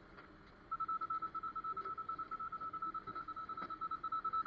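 Rapid electronic beeping: one high, steady-pitched tone pulsing about eight times a second, starting under a second in.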